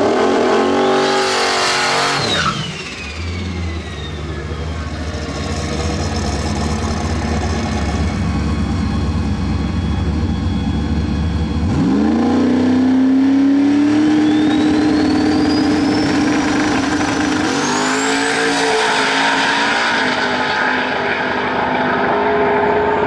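Drag race car engines at full throttle. One car passes with a rising rev, then its pitch drops sharply about two seconds in. Later an engine is brought up and held at steady high revs while a high whine climbs, and it surges louder near the end as the car launches.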